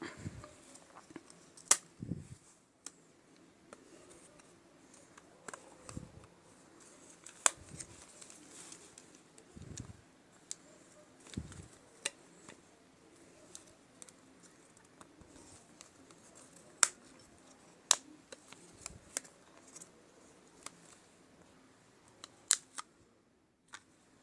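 Irregular sharp clicks and taps of small tools against plastic and metal phone parts while a Samsung Galaxy J7 Nxt smartphone is disassembled, with a few soft low thumps of handling.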